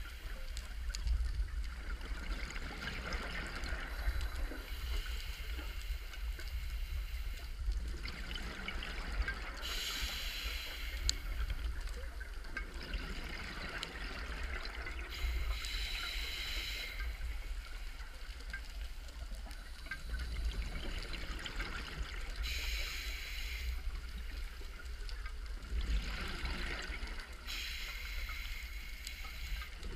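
Scuba breathing heard underwater through the camera housing: five bursts of regulator hiss and bubbles, one about every five to six seconds, over a steady low rumble.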